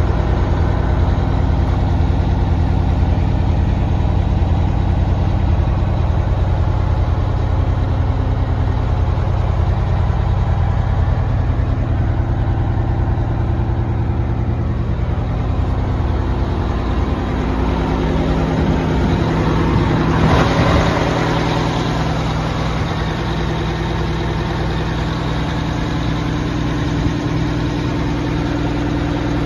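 The Oshkosh M1070 truck tractor's Detroit Diesel 8V-92TA two-stroke V8 diesel idling steadily, heard first inside the cab and then from outside. About twenty seconds in there is a brief rush of noise, and the engine tone changes after it.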